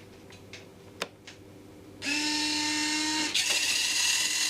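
Stock electric retract units of a Dynam Hurricane RC warbird whining as they move the undercarriage, in two steady runs of about a second each that end abruptly. A single click comes about a second in.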